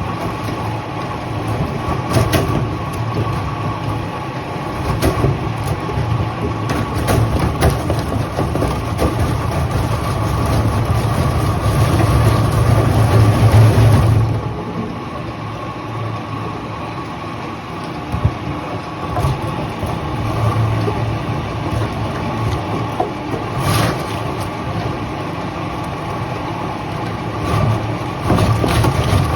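Sawmill machinery running: a steady engine-like drone with a constant whine. It grows louder about ten to fourteen seconds in, then drops off suddenly, with a few short knocks along the way.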